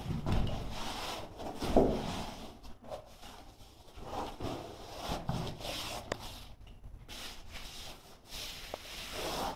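Hands rubbing and smoothing carpet underlay down onto a glued concrete floor, an irregular scuffing and rustling.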